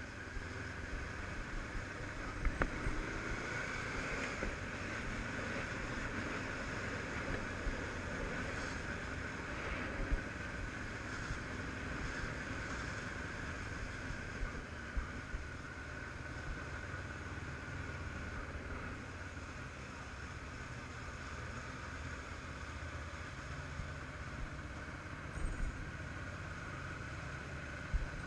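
Honda CBF500's parallel-twin engine running steadily as the motorcycle is ridden, with road and wind noise on a helmet-mounted camera and a few brief knocks.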